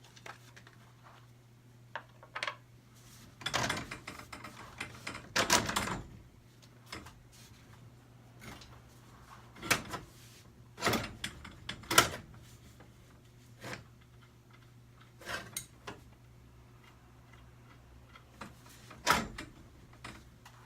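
Scattered metallic clanks, clicks and a few short scrapes of tools and hardware being handled while working on garage door torsion spring parts, over a steady low hum.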